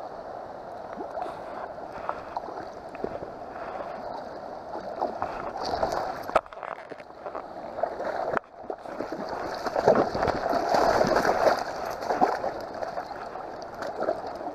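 Shallow river water running and splashing over rocks close to the microphone, with splashes as a small hooked Chinook salmon is played in the shallows; the splashing is loudest for a couple of seconds about ten seconds in, and there is a single sharp knock about six seconds in.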